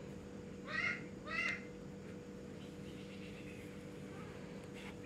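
An animal calling twice in quick succession about a second in, two short pitched calls about half a second apart, over a steady low background hum.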